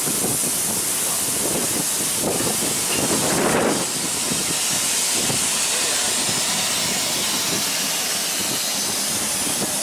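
LMS Jubilee steam locomotive 45596 Bahamas letting off steam, a steady loud hiss that swells briefly about three seconds in.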